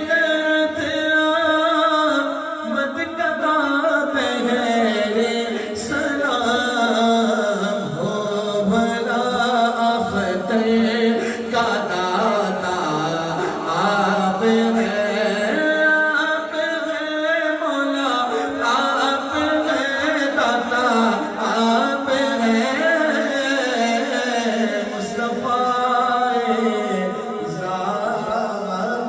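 Male voice singing an Urdu naat, a devotional poem in praise of the Prophet, in long, drawn-out melodic phrases without a break.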